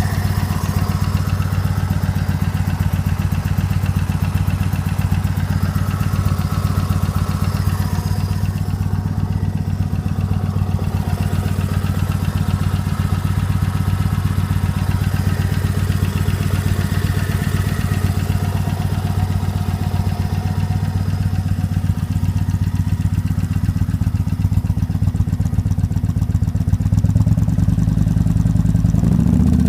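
Motorcycle engine idling steadily, picking up slightly and getting a little louder near the end.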